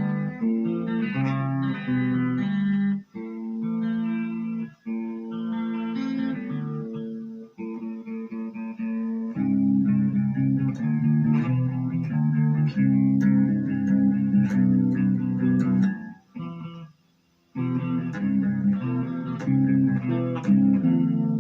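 Electric guitar played through a Marshall MG15GFX combo amp's clean channel with the reverb in studio mode, a run of chords and notes. The playing stops briefly for about a second a little past three quarters through, then resumes.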